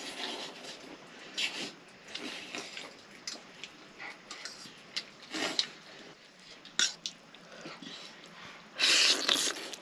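Buffalo-meat noodle soup being slurped and chewed, irregular wet slurps and mouth noises, with one longer, louder slurp near the end.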